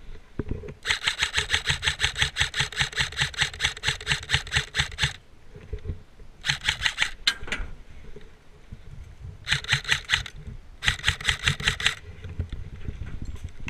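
Krytac CRB electric airsoft rifle firing on full auto: a long burst of about four seconds, then three shorter bursts.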